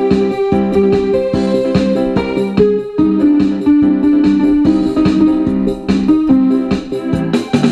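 Electro-trance music: keyboard and synth notes over a steady electronic beat.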